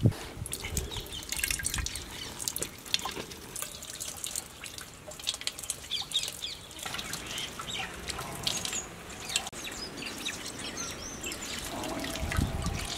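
Orange juice squeezed by hand, dripping and splashing in quick, irregular drops into liquid in a large metal cooking pot.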